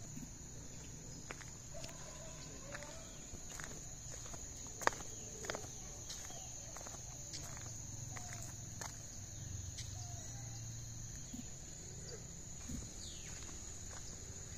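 Steady high-pitched drone of insects, with scattered footstep clicks, one sharper click about five seconds in, and a few short bird chirps.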